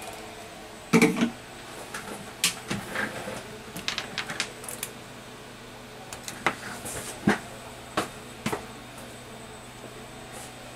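Irregular light clicks and knocks of small objects being handled, with a louder cluster of knocks about a second in, over a faint steady hum.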